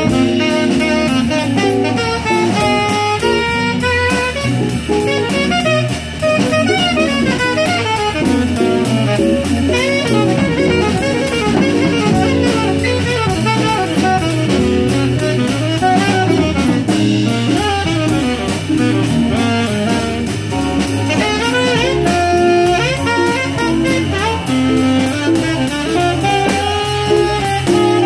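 Live jazz from a small combo: a saxophone plays a melodic line over a drum kit with ride cymbal, backed by a hollow-body electric guitar.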